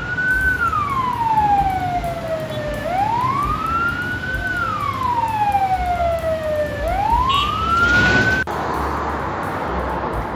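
Wailing siren, rising and falling in slow sweeps about every four seconds, that cuts off abruptly about eight seconds in; a steady hiss of road traffic follows.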